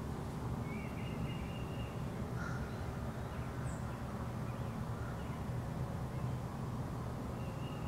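Outdoor ambience: a steady low rumble with a few faint bird calls over it, a thin held call about a second in and again at the end, and short high chirps in between.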